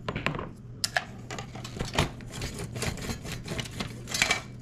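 Headway LiFePO4 cylindrical cells being pulled out of plastic cell-holder frames and set down on a stone countertop: an irregular run of clicks and clacks, the sharpest about a second in, at two seconds and near the end.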